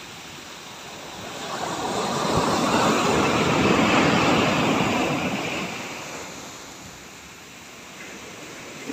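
Heavy surf from a storm-rough sea: a steady rushing wash of waves that swells to a peak about four seconds in and then eases off.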